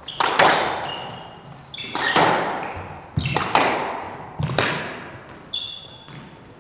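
Squash rally: the ball cracks off a racket and the court walls in quick pairs about every second and a half, each hit ringing in the hard-walled court. Sneakers squeak briefly on the wooden floor between shots.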